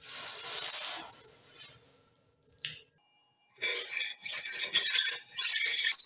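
A steel hand file scraping along a steel knife blade in repeated strokes, starting a little past halfway. Before that, a hiss fades out over the first second or two.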